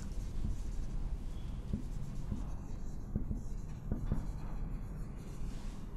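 Marker pen writing on a whiteboard: faint scratching strokes with a few light ticks as the pen moves across the board.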